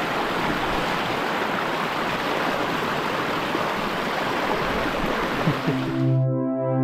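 Creek water rushing steadily. About six seconds in, the water sound cuts off and soft synthesizer music begins.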